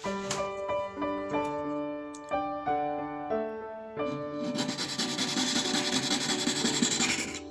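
Background music with a keyboard melody of short stepped notes. About four seconds in, a dense scratchy rubbing noise joins the music for about three seconds and then stops.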